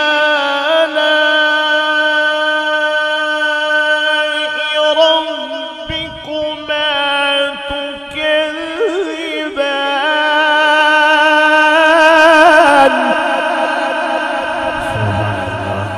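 A male qari reciting the Quran in the melodic mujawwad style through a microphone, holding long drawn-out notes with wavering ornamental turns. The voice is loudest just before it falls away near the end.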